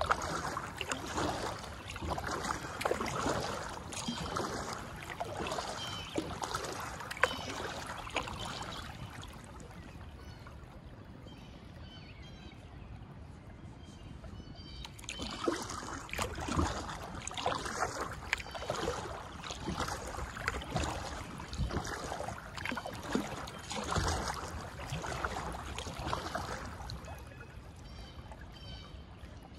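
Kayak paddle strokes dipping and pulling through calm water with splashing and drips, about one stroke a second. It goes quieter for several seconds in the middle while the kayak glides, then the strokes pick up again. There is one sharp knock about seven seconds in.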